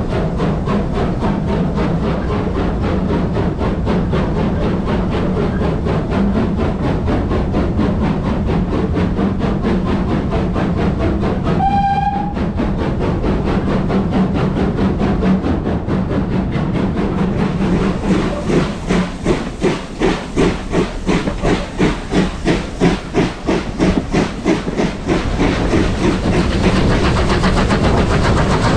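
Steam train running, heard from inside a carriage as a steady rumble. Its BR Standard Class 2 locomotive gives one short whistle about twelve seconds in. Later the running noise takes on a rhythmic beat of about two a second for several seconds.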